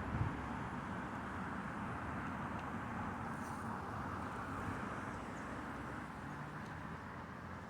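Low rumble of rolling thunder over a steady rushing noise, slowly fading toward the end.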